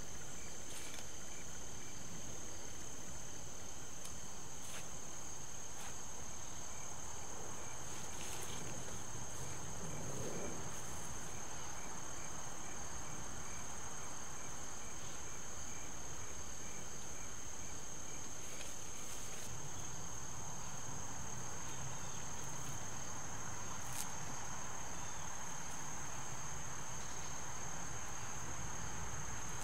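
Insects trilling in tall grass: one steady, high-pitched trill throughout, with a second insect's regular pulsed chirping alongside for the first half or more. There are a few faint clicks now and then.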